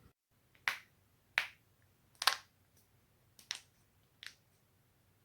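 Joints cracking: five sharp pops a second or less apart, the third the loudest.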